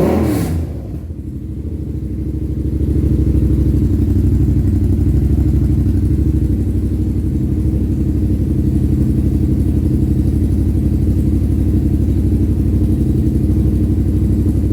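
2017 Yamaha MT-07's parallel-twin engine idling steadily while it warms up after an oil change. A brief rev dies away right at the start.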